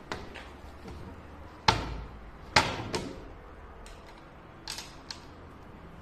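A few sharp wooden knocks and clacks, the two loudest about two and two and a half seconds in, with lighter taps later: wooden glazing beads and sash parts being handled and set in place around a double-glazed unit.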